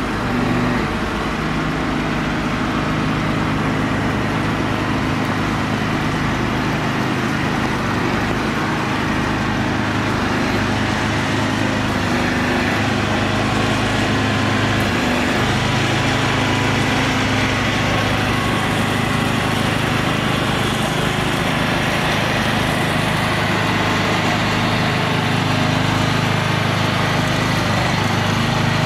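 Diesel engine of a heavy-haul truck rig carrying a Shinkansen car, running steadily as the rig rolls slowly past.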